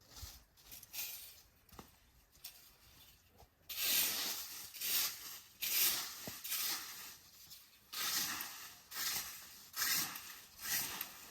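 Repeated scraping or brushing strokes on a rough surface, about one a second, starting about four seconds in after a few seconds of faint rustling.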